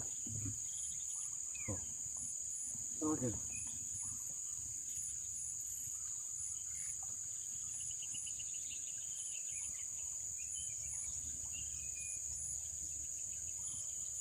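Steady high-pitched insect drone, with a faster pulsing insect call above it, both running unbroken. A short voice-like sound comes about three seconds in, and faint bird chirps sound near the middle.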